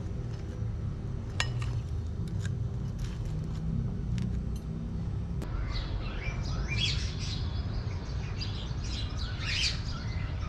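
A table knife cutting through crisp toast on a plate, with a few sharp crackles and clicks, over a low steady rumble. About halfway through, birds start chirping and calling in quick sweeping notes.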